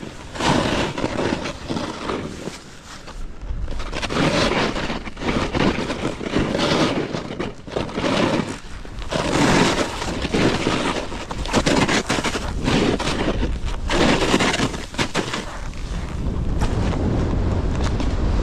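Snowboard edge scraping and hissing across snow in a run of linked turns, one surge about every second, with wind buffeting the microphone. Near the end the scraping gives way to a steady wind rumble.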